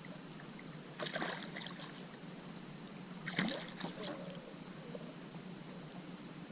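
Water splashing and sloshing beside a kayak in two short bursts, about a second in and again past the middle, from a hooked redfish being handled at the boat.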